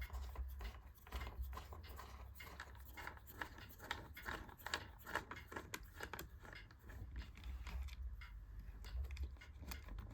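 Irregular small clicks and scrapes of a screwdriver working Torx screws out of an iMac's hard-drive mounting, over a faint low hum.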